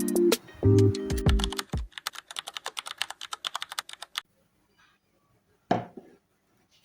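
Background music stops about two seconds in. Quick typing on a computer keyboard follows for about two seconds, roughly ten key clicks a second. A single knock comes near the end.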